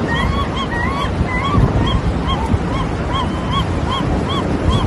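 An animal's short, arching honk-like calls, repeated about two to three times a second over a loud, steady rushing noise.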